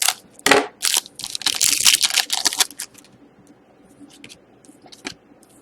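Wrapper of a trading-card pack being torn open and crinkled: a run of sharp crackling rustles for about the first three seconds, then a few light clicks and rustles as the cards are handled.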